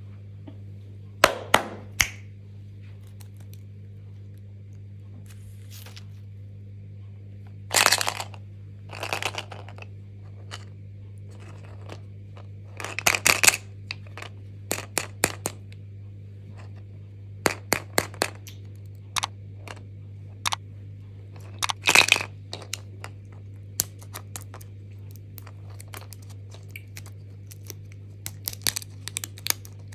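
Plastic candy and toy-egg packaging being torn open and handled: irregular crinkling, tearing and sharp plastic clicks and cracks, over a steady low hum.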